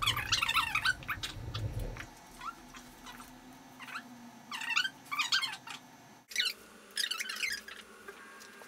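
Rope being drawn and tightened through knots, rubbing on itself in three short squeaky bursts: one in the first two seconds, one at about five seconds and one near the end.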